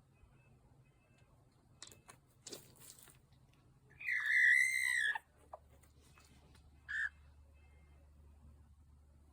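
Chicken calls: a few brief scratchy rustles, then one loud squawking call of about a second, bending in pitch, about four seconds in, and a short chirp near seven seconds.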